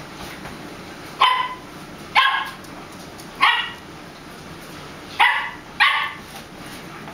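A small dog barking in play at a kitten: five short, sharp, high-pitched yaps, spaced about a second apart, with the last two in quick succession near the end.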